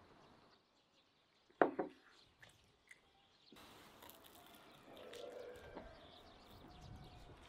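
A single loud sip or slurp from a clay mug about one and a half seconds in, followed by faint chewing and eating sounds.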